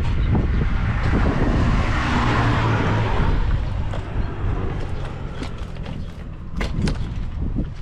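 Kawasaki KSR80's two-stroke single-cylinder engine running through an RSV expansion chamber exhaust, louder for the first few seconds and then settling lower, with a couple of sharp clicks near the end. The seller calls it a quite quiet engine with no abnormal noises.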